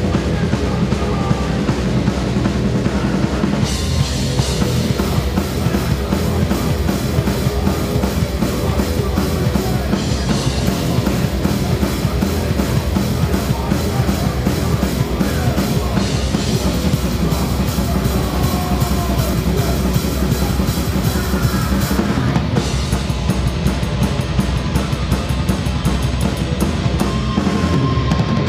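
Live rock band playing, heard close from the drum kit: bass drum, snare and cymbals loud in the mix. A wash of cymbals opens up about four seconds in and gives way to a tighter, even ticking pattern near the end.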